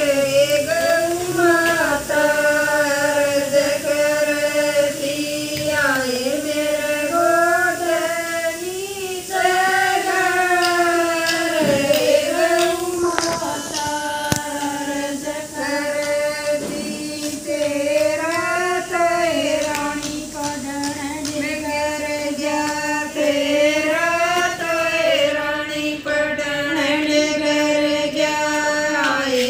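Women singing a Haryanvi bhajan together, one continuous melody with gliding, ornamented phrases.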